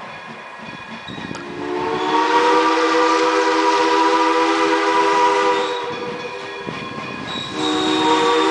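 Steam locomotive whistle sounding a long blast as the train approaches unseen, then a second long blast starting near the end.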